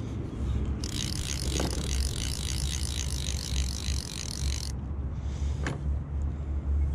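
Fly reel's click-and-pawl drag ratcheting in quick, regular pulses for about four seconds while a hooked trout is played. A single sharp knock comes a little later.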